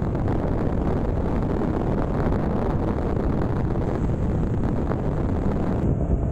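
Motorcycle under way: a steady rush of wind on the microphone over engine and road noise.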